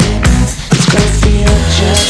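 Music: a song with a steady drum beat.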